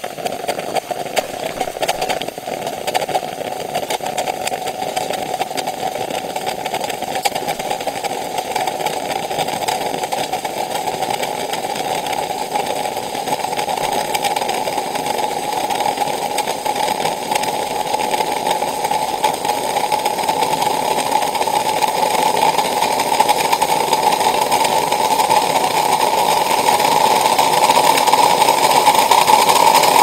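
Early-1970s Letizia Espresso aluminium moka pot on a gas burner brewing: a steady gurgling, hissing rush as the coffee is forced up. It grows louder and slowly rises in pitch, with worn gaskets and no cap on the porcelain top letting it leak and spit.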